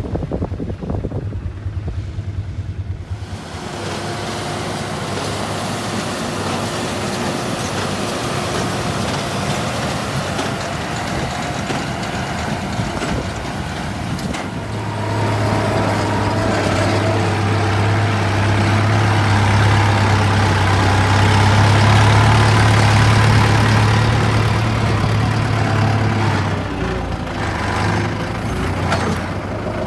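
Heavy vehicle engine running, with a steady low hum. It grows louder from about halfway through and eases off again near the end.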